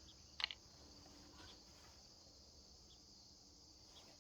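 Faint, steady chirring of insects, with one short click about half a second in.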